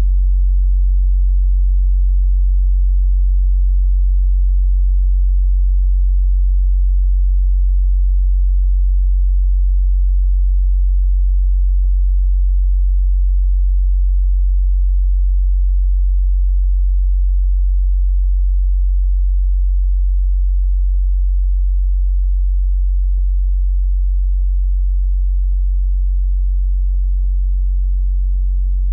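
A loud, steady low hum: one deep unchanging tone with a fainter tone above it. A few faint ticks sound in the second half.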